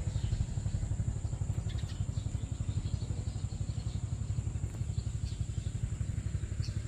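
Motorcycle running steadily while riding across a steel-plate bridge deck, heard from on the bike: a low, fluttering rumble.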